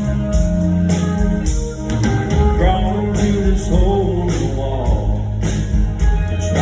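Country band playing live, with a steady drum beat, bass and guitars; a lead melody line bends up and down in pitch in the middle.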